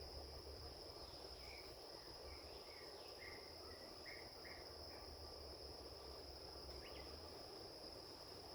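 Crickets keeping up a steady, faint high drone. A run of about eight short chirps comes between roughly one and five seconds in, and one more brief call near the end.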